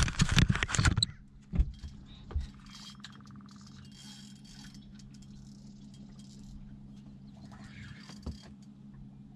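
Fishing reel and tackle clicking and rattling fast for about a second while a striped bass is being fought, then a few light clicks over the steady low hum of a boat motor.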